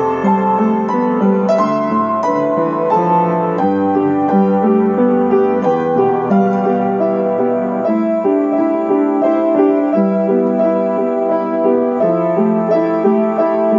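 Upright piano played by hand: a melody over chords, the notes sustained and overlapping, at an even level throughout.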